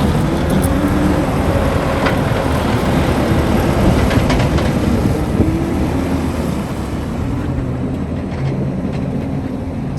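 Diesel engine of a John Deere 333E tracked skid steer running steadily, with a few sharp metallic clicks over it. It eases slightly near the end.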